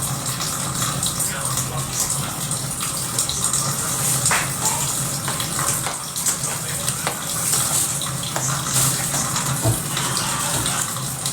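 Water running steadily from a tap during washing up, with a few light clicks.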